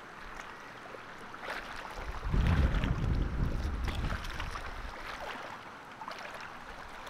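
Shallow water sloshing and splashing as a hooked ladyfish is reeled to the surface around a wading angler's legs, with wind gusting on the microphone, loudest about two to three and a half seconds in.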